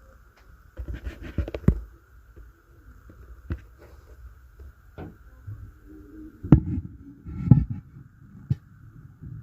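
Thuds and knocks from an upstairs apartment, heard through the ceiling: a quick run of thumps about a second in, then single knocks every second or so, the loudest two about two-thirds of the way through.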